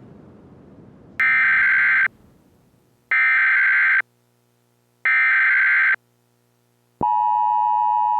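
Emergency Alert System broadcast signal, as sent on weather radio: three identical buzzy data-tone bursts of about a second each, roughly two seconds apart. About seven seconds in, the steady two-pitch attention tone begins.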